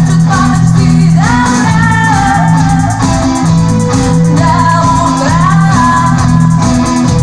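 Live rock band music: guitars and bass under a moving melody line, with a steady beat.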